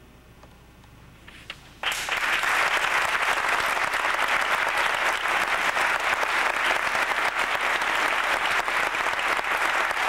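The last sung notes die away into a quiet pause, then about two seconds in a concert audience breaks into loud, steady applause.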